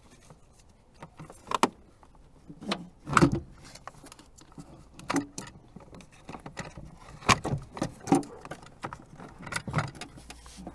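A Ford C-Max's 12-volt battery being hoisted out of its compartment on a load strap: a string of irregular knocks, clunks and scrapes as the battery bumps and rubs against the surrounding compartment. The loudest knock comes about three seconds in.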